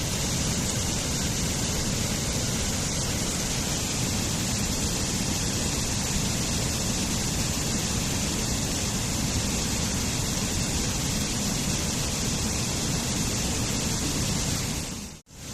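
Waterfall: a steady, even rush of falling water. Near the end it dips out for a split second and comes straight back.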